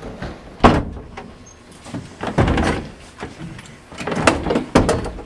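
Knocks and scrapes of a door being slid or pulled open and things handled behind it. The sharpest knock comes about two-thirds of a second in, a longer scrape around two and a half seconds, and a cluster of knocks near the end.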